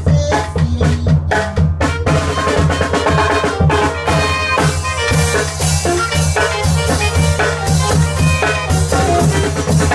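Live Guanajuato-style tamborazo band playing: saxophones carry the melody over a snare drum and a tambora bass drum with a cymbal on top, with dense, steady drumming.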